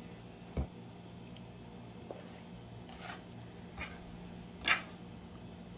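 Raw diced pollack being tossed by hand on a wooden cutting board: a soft thud of hand on board early on, then a few short wet squishes and taps, the loudest near the end, over a low steady hum.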